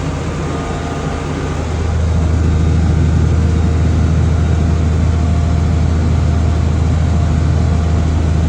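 International Harvester 1086 tractor's six-cylinder diesel engine running steadily under baling work, growing louder about two seconds in.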